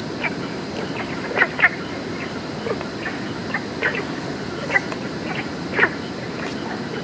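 Frogs calling at night by the water: short, sharp croaks about every half second to a second at uneven intervals, over a steady low background noise.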